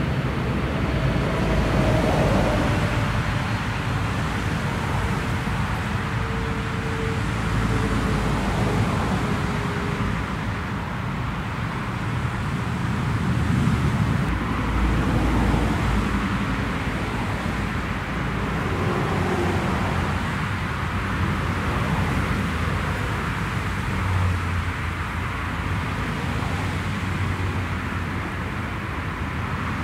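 Turboprop airliner engines running at taxi power: a steady roar with a faint whine that slowly falls in pitch over the first several seconds.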